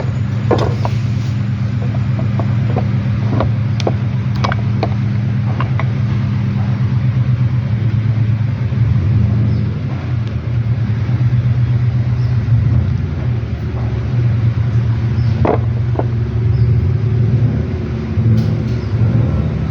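Toyota Estima engine idling steadily with a knock that is put down to a faulty balancer gear. A few sharp clicks sound now and then over the steady running.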